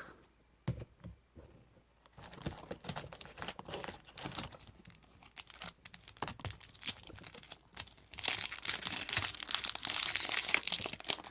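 A trading card pack's plastic wrapper being torn open and crinkled. A few light clicks come first, then the crackling builds and is loudest near the end.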